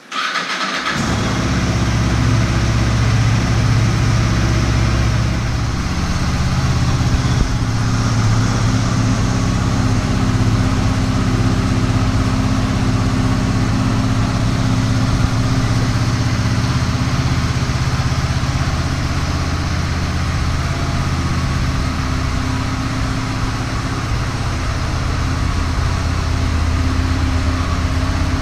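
Honda VFR800 VTEC's V4 engine catching on a cold start, then idling steadily.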